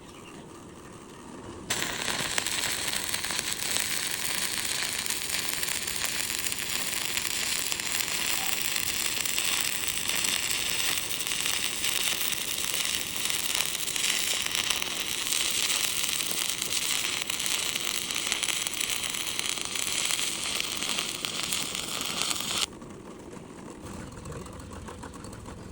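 Stick welding arc crackling steadily, struck about two seconds in and broken off abruptly about three seconds before the end.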